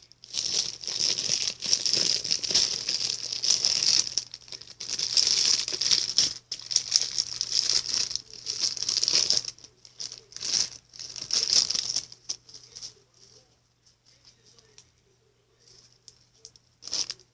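Plastic bag crinkling as slime is handled in it and worked out of it, in rapid busy bursts for about twelve seconds, then mostly quiet with one short burst near the end.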